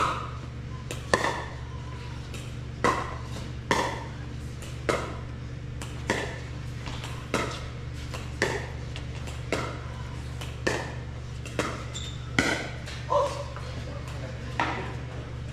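Pickleball paddles hitting a hard plastic pickleball in a long rally: about fourteen sharp pops, roughly one a second, each with a short echo, over a steady low hum.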